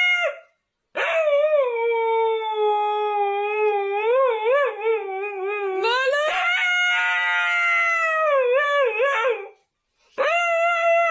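A dog howling in long, drawn-out notes that waver in pitch. A note cuts off at the start, two long howls of about four seconds each follow, and another begins near the end.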